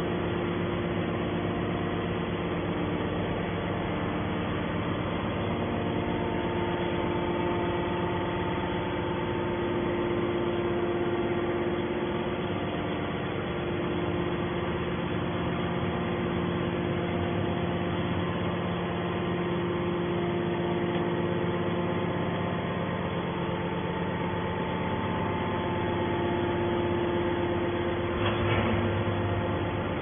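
Hydraulic power unit of a 250-ton metal scrap baler running steadily, a constant machine hum with a few steady tones.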